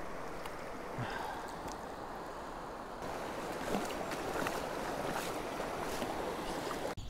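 Stream water flowing steadily, an even rush of the current, which breaks off abruptly near the end.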